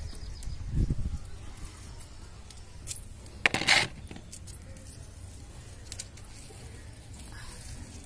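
Handling sounds of hand-picking tomatoes: a bangle clinking with scattered light clicks, a dull thump about a second in, and a louder clatter about three and a half seconds in as picked tomatoes are dropped into a plastic tub.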